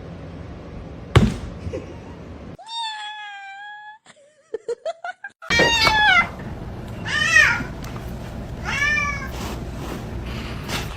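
A cat meowing four times: a long, drawn-out meow, then three shorter ones that rise and fall in pitch, with a single knock shortly before the first.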